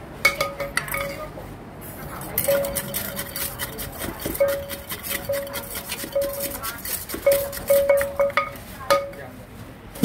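Wooden pestle knocking and stirring chili flakes and seasoning in a large clay mortar, with a metal ladle clinking and scraping against the mortar in quick, uneven strokes, many of them ringing briefly.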